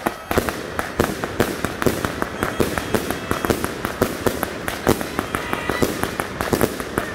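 Multi-shot consumer firework cakes firing in a rapid barrage: a dense run of launch thumps and bursting breaks, several each second without a pause.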